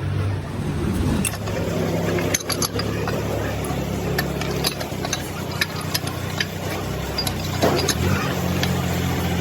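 A steady low mechanical hum with many scattered sharp clicks and clinks.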